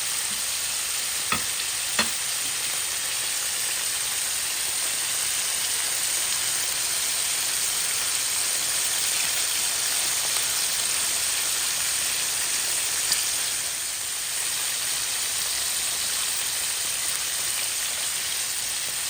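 Chicken wings deep-frying in hot oil, a steady sizzle with a couple of small clicks about a second and two seconds in.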